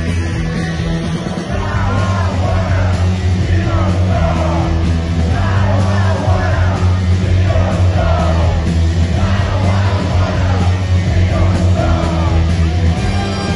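Live punk rock band playing loud and bass-heavy, with a male lead singer yelling and singing into a microphone over it, recorded from the crowd.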